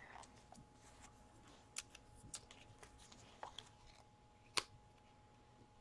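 Near silence with faint handling of a paper rub-on transfer sheet: a few small sharp clicks and ticks, the loudest about four and a half seconds in.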